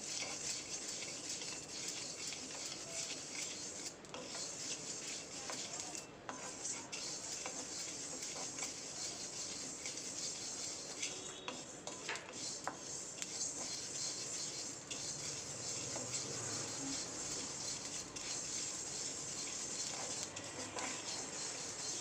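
Wooden spatula stirring and scraping sesame seeds as they dry-roast in a kadai: a continuous rustling scrape of seeds against the pan, with a few small clicks.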